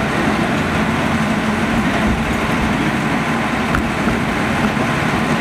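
Steady running noise of a narrow-gauge forest railway train in motion: the diesel locomotive's engine hum and the rumble of the wheels on the track.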